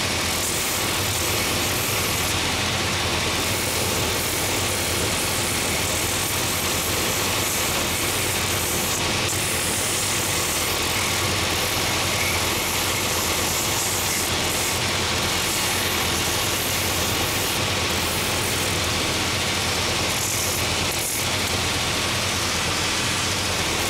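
Belt sanding machine for last making running, its coarse 24-grit, 3-inch sanding belt grinding a wooden shoe last held against the drum: a steady motor whir under a rasping hiss that swells and fades as the wood is pressed on and eased off.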